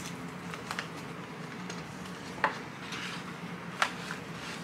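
Light handling noise of small earrings and their packaging: soft rustling with a few small clicks, three sharper ones spread across the few seconds.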